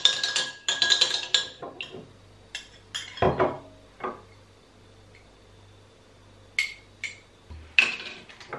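A metal teaspoon clinking quickly against small drinking glasses, followed by scattered single clinks and knocks as the spoon taps the glass rims and the glasses are set down on a countertop, with a couple of duller knocks among them.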